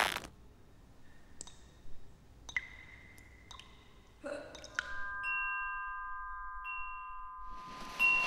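Sparse chime-like struck notes, each ringing briefly, then several bell-like tones sounding together and held for a few seconds before fading. A rush of noise comes in near the end.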